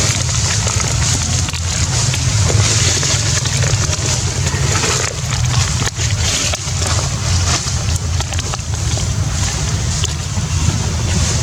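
Wind buffeting the microphone: a steady, loud, fluctuating low rumble with a hiss over it.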